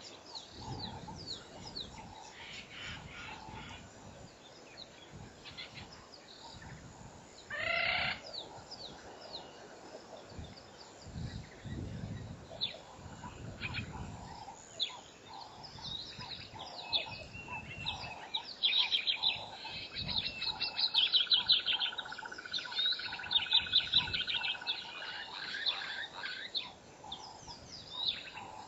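Wild birds chirping and calling. There is one loud call about eight seconds in, and a fast chattering trill in the second half over a steady thin tone.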